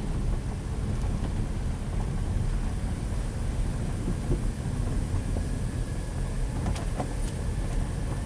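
A car driving slowly, heard from inside the cabin: a steady low rumble of engine and tyres, with a few light ticks about seven seconds in.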